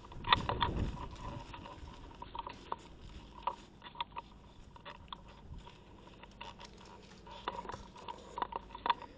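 Handling noise of a player moving with a body-worn camera: irregular clicks, scrapes and rustles of gear and clothing, with footsteps on grass. A low rumble comes about half a second in.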